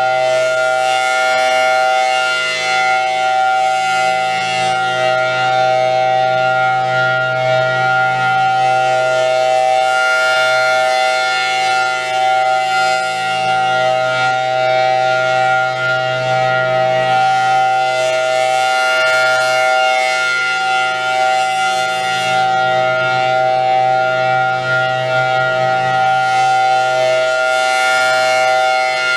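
Federal Signal Thunderbolt 1000T tornado siren sounding its steady alert tone, a held dual-tone chord with no rise or fall in pitch. The siren is rotating at 8 RPM, so the upper tones swell and fade every several seconds as the horn sweeps past.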